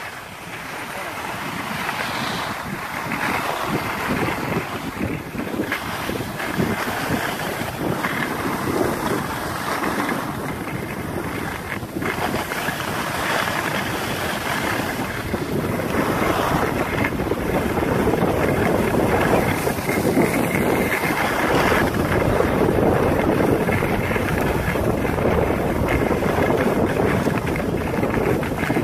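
Wind rushing over the microphone of a camera carried by a downhill skier, mixed with the hiss of skis sliding on groomed snow. The rush grows louder through the second half.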